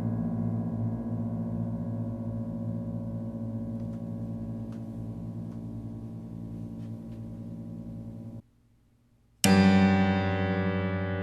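Strings of a bare upright piano, its case stripped off for dismantling, ringing out in a long slow decay with many overtones and a few faint ticks. About eight seconds in the sound cuts off suddenly, and a second later a new loud strike sets the strings ringing again.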